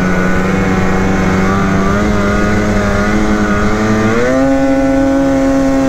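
Snowmobile's Polaris 850 Patriot two-stroke twin engine running hard at steady revs. About four seconds in its pitch rises and holds higher as the sled lifts its skis into a wheelie.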